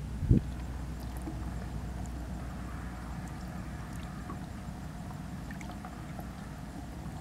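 A hand sloshing and splashing through the water of a minnow bucket while it reaches for bait minnows, with a dull low thump just after the start and a steady low rumble underneath.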